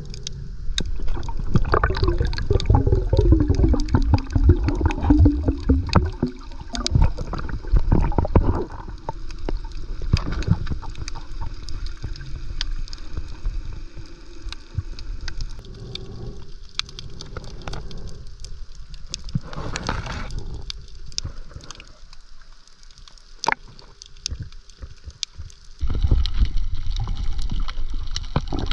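Water sloshing and gurgling around the camera, with many scattered sharp clicks. Early on a wavering tone falls in pitch, and the sound grows louder near the end.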